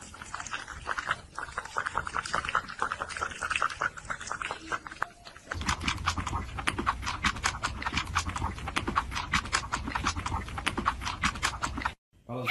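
An animal panting rapidly, a dense run of quick rasping breaths. It grows louder and fuller about five and a half seconds in, then cuts off suddenly near the end.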